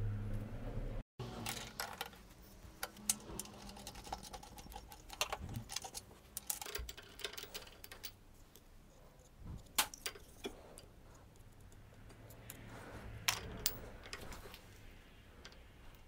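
Light metallic clicks and clinks at irregular intervals as a threaded bolt and a large washer are handled and set into a bench vise. A low steady hum in the first second cuts off abruptly.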